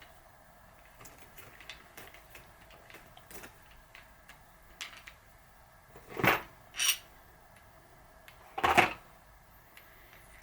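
Small metal parts and tools being handled while a sealed bearing is started into a bicycle freehub body: a run of light clicks and taps, then three louder metallic scrapes, two close together past the middle and one near the end.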